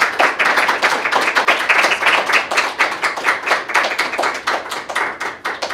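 Audience applauding: many dense, rapid hand claps that hold steady, then thin out near the end.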